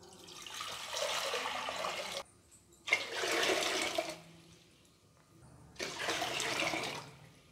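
Water poured from a steel jug into an aluminium pressure-cooker pot, splashing in three separate pours of one to two seconds each.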